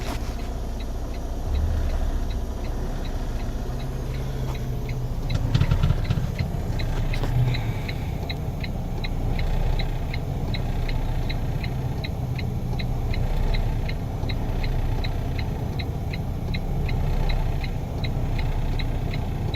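2017 Freightliner Cascadia's diesel engine running, heard from inside the cab, with a brief swell in engine sound about five to six seconds in. From about then on, a steady ticking comes in, about two to three ticks a second.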